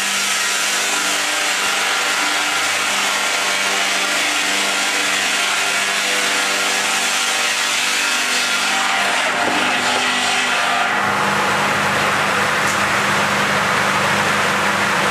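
Log sawing line running and cutting through a log: a steady motor hum under a dense hiss of cutting. About eleven seconds in the cutting noise changes and grows fuller.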